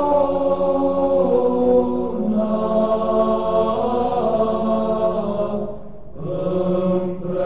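Chanted vocal music in the style of Orthodox church chant: long sung notes moving slowly over a steady low drone, dropping away briefly about six seconds in.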